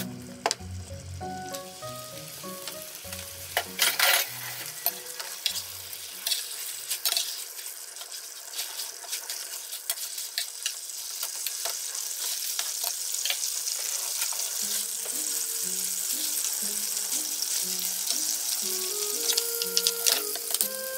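Thick ketchup-based sauce sizzling in a frying pan as browned chicken drumsticks are turned and coated in it with a spatula, the sizzle growing louder as it goes on. A few sharp clatters about four seconds in.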